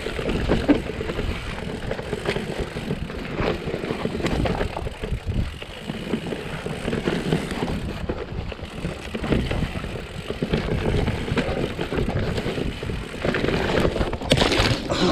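Mountain bike riding fast down a rough dirt downhill trail: a continuous rumble of tyres on the ground and the frame rattling over roots and bumps. There is a louder burst of rattling near the end.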